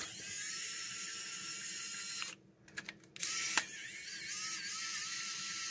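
Small electric precision screwdriver whirring as it backs out the case screws of a plastic tool housing. It runs twice, with a brief stop a little over two seconds in.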